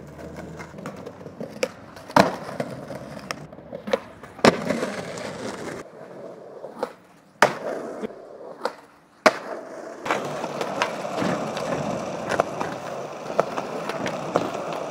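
Skateboard wheels rolling over concrete and asphalt, with about four loud, sharp clacks of the board popping and hitting the ground.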